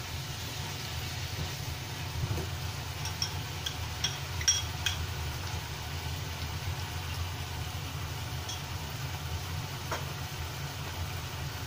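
Lotus root and wood ear fungus frying quietly in a nonstick pan while a silicone spatula stirs them, with a few light clicks and taps against the pan around the middle. A steady low hum runs underneath.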